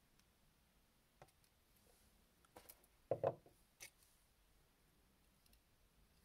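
Near silence broken by a few faint clicks and one short knock about three seconds in, as small objects are handled.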